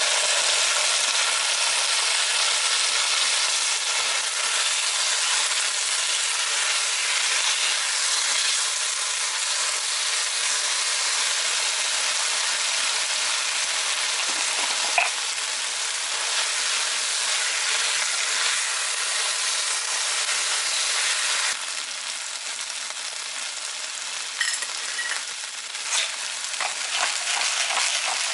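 Vegetables, fish cakes and sausage sizzling steadily in a nonstick frying pan. The sizzle drops a notch about two-thirds of the way through. Near the end a few clicks come from a utensil stirring the food in the pan.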